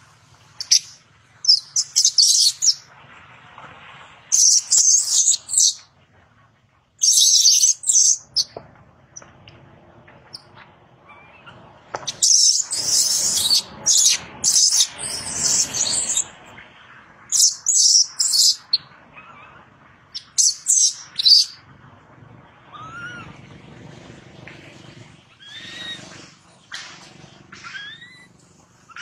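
Infant long-tailed macaque giving shrill distress screams in repeated bouts of one to four seconds with short pauses between, while its mother pins and handles it roughly. Near the end the screams give way to a few fainter, short rising squeals.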